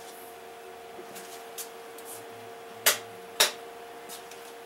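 Two sharp clicks about half a second apart, light switches being flipped off to darken the room, over a steady low electrical hum.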